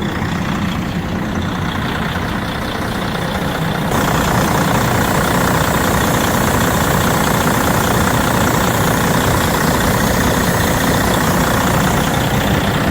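Freightliner semi truck's diesel engine idling steadily, just started on a new battery, starter and cables. About four seconds in, the sound steps up louder and brighter.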